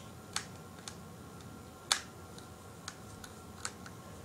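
Small screwdriver clicking and scraping against the screws and plastic battery cover of a toy blaster as the screws are worked loose: a handful of sharp, irregular clicks, the loudest about two seconds in.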